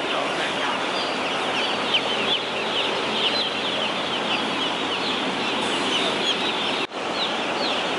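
Many hatchling chicks peeping together: a dense chorus of short, high, downward chirps, with a very brief break near the end.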